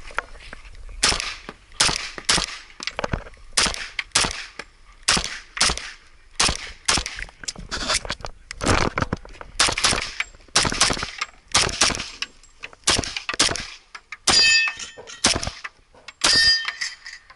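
STI 2011 Edge .40 pistol fired in rapid strings, mostly quick pairs of shots, with short pauses while the shooter moves between positions. Metallic ringing follows shots twice near the end.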